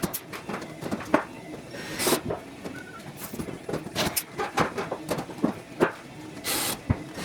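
Pulled (blind) rivets being set in a wing skin with a rivet puller: a run of irregular sharp clicks and knocks, with two short hissing bursts, one about two seconds in and one near the end.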